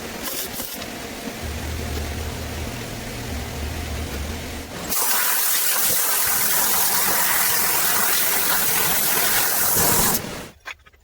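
A steady rushing hiss, much louder from about five seconds in, that cuts off sharply near the end.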